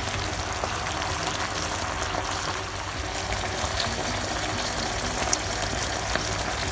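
Coconut cream sauce simmering in a frying pan with winged beans and ground pork: a steady bubbling sizzle with fine crackles.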